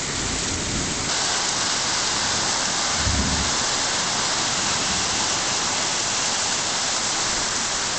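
Torrential rain pouring down in a steady roar, growing heavier about a second in, with a brief low thump about three seconds in.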